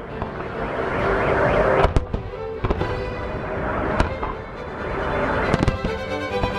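Fireworks salute going off: a steady crackling rush broken by sharp bangs, a cluster about two seconds in, one at about four seconds and a quick run near the end.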